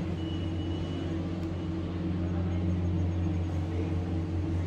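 Steady low mechanical drone with a constant pitch, with a thin high tone lasting about a second near the start.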